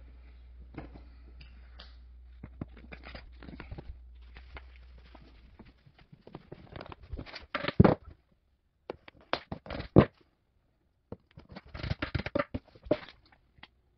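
Irregular clicking and knocking of small metal cam locks being fitted into holes in pressed-board shelf panels, with the panels being handled. The two loudest knocks come about eight and ten seconds in.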